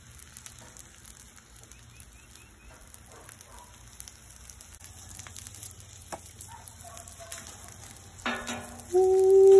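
Panko-breaded chicken breasts shallow-frying in oil on a flat-top griddle: a quiet, steady sizzle. Near the end a voice breaks in with a loud, drawn-out 'ooh'.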